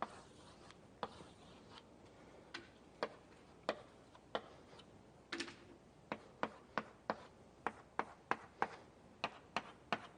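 Writing on a lecture board: a run of sharp taps as letters and lines are marked, a few at first and then coming faster, about two a second, in the second half.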